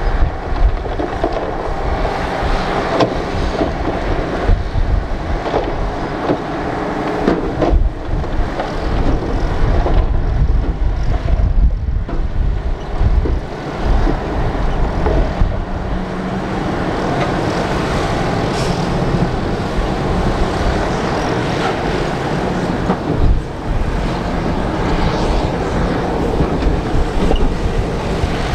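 Diesel engines of a crawler bulldozer and dump trucks running under load, a continuous deep machine noise that rises and falls unevenly.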